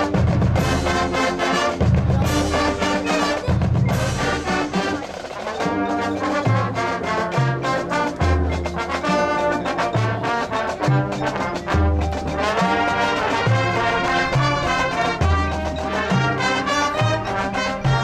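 Marching band playing a loud brass passage: trombones and trumpets hold chords over heavy low bass notes and drums.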